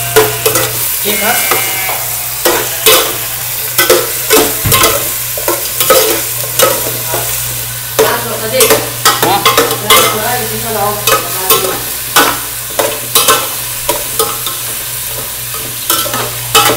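Goat meat and garlic sizzling in hot oil in a metal pot as they are sautéed and stirred. A metal ladle knocks and scrapes against the pot over and over, over a steady low hum.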